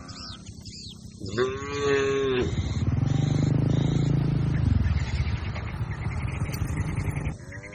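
A cow mooing: a short, higher-pitched call about a second and a half in, then a long, low moo lasting nearly five seconds that cuts off near the end.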